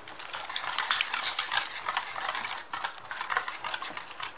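Wire whisk stirring wet egg-and-idli batter in a stainless steel bowl: a steady run of fast scraping and small metallic clicks as the wires hit the bowl.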